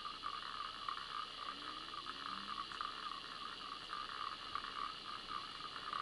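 Faint steady hiss with a fluttering whirr, the recording's own background noise, and a faint low voice-like sound briefly near the middle.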